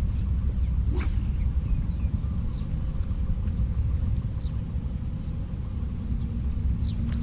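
Wind buffeting the microphone, a steady low rumble, with a few faint short chirps and a thin high steady tone above it.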